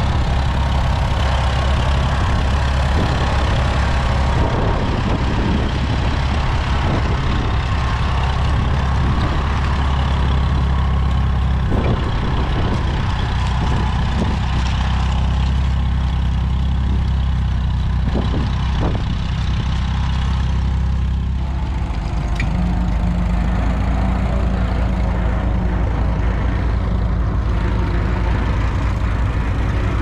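Vintage Case tractor's engine running steadily as it pulls a trailed plough through the soil, a low, even engine note. About 22 seconds in, the sound switches to another vintage tractor engine, a Fordson, running steadily under plough load.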